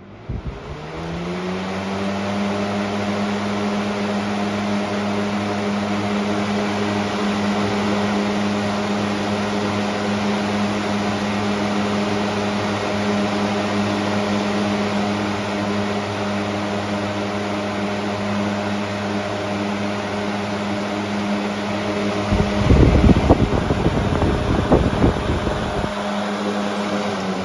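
Air King 20-inch box fan (model 9723) switched on at high speed: its motor hum rises in pitch over the first two seconds as the blade spins up, then runs steadily with a hum and rushing air. Near the end, about three seconds of low rumbling and knocks sound over it.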